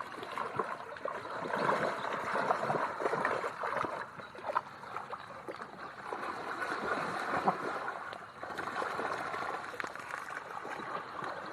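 Water splashing and trickling, with a few sharper splashes about four and a half and seven and a half seconds in.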